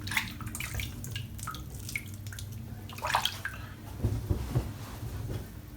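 Water splashing and dripping at a sink in short, irregular bursts, over a low steady hum.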